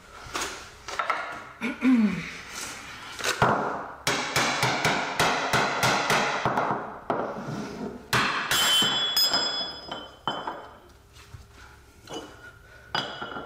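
Steel press-cup and sleeve tools from a ball joint press kit being handled and swapped: knocks and metal clinks, a quick run of even clicks, and a piece of steel ringing briefly about eight and a half seconds in.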